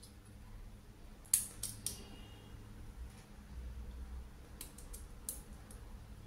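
Kitchen knife cutting almonds held in the fingers: a few sharp, crisp clicks as the blade cracks through the nuts. The loudest comes about a second and a half in, and a second cluster follows near the five-second mark.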